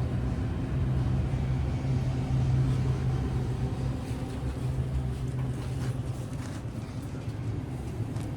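Steady low mechanical drone, like a running engine or motor, with a strong hum near the bottom of the range and no sudden sounds.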